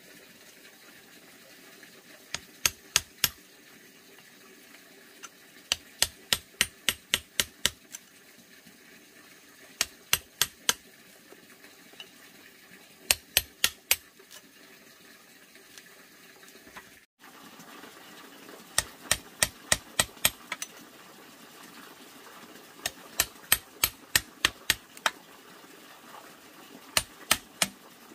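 Small hammer striking the back of a machete blade to drive it into a green bamboo pole: sharp metal-on-metal taps in quick runs of three to nine, with short pauses between runs.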